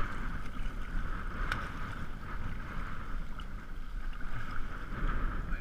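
Wind buffeting the microphone with a low, steady rumble, and small water splashes as hands grab a striped bass in shallow water. There is one sharp tick about a second and a half in.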